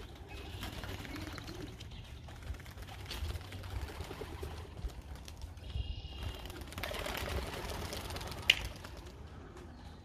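Pigeons at their loft: wings flapping as birds take off, with some cooing, over a low steady rumble. A single sharp clap stands out about eight and a half seconds in.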